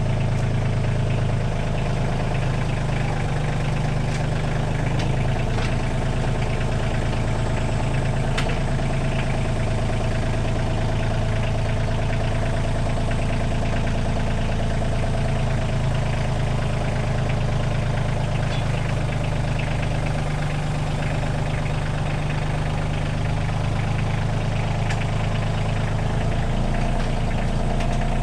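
Kioti CK2610 compact tractor's three-cylinder diesel engine running steadily, with a few faint clicks, one about eight seconds in.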